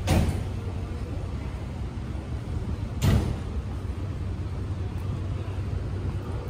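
Two heavy thuds about three seconds apart, over a steady low engine hum from the street.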